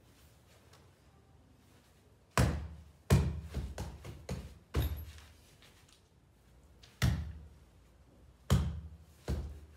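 Strikes landing on a hanging Everlast heavy bag: dull thuds that begin about two and a half seconds in, several in quick succession, then a few more spaced out near the end.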